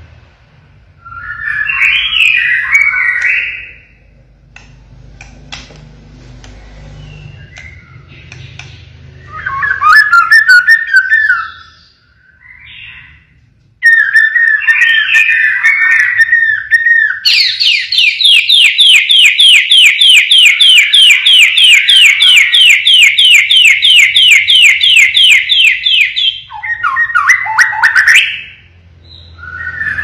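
White-rumped shama singing loud whistled phrases, then a long run of rapid, repeated rising notes, about four a second for some nine seconds: the siren-like 'tembakan' burst that murai batu keepers prize. A short phrase follows near the end.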